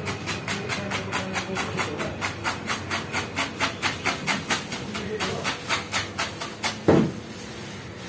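Kitchen knife chopping fast and evenly on a plastic cutting board, about five or six strokes a second, shredding a vegetable into thin strips. The chopping stops about seven seconds in with one louder thump.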